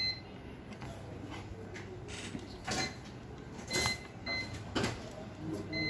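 Multimeter continuity beeper giving brief beeps as the probe tips are touched to points on a circuit board, with scratchy clicks of the probes between them. The beep signals a very low resistance, a sign of a short on the board.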